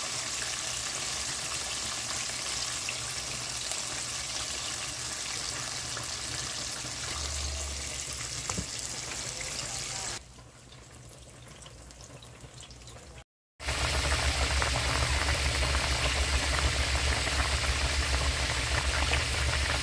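Chicken pieces sizzling in deep-frying oil, a steady crackling hiss. About ten seconds in it drops quieter, and after a brief break a louder steady hiss with a low hum comes in.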